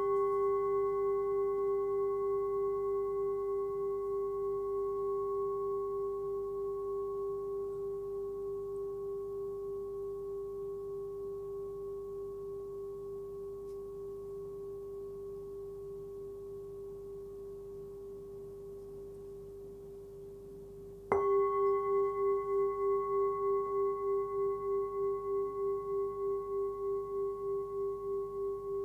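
Tibetan singing bowl, 13 cm across and pitched at about 396 Hz (G), ringing after a strike with one long, slowly fading tone and a gentle pulsing beat. About 21 seconds in it is struck again and rings on louder, with a stronger, regular wobble.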